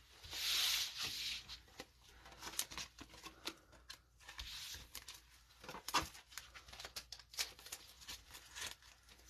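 Gloved hands handling trading cards and clear plastic card holders: a soft sliding swish about half a second in, then scattered light clicks and plastic rustles as a card is slipped into a sleeve and a rigid top loader.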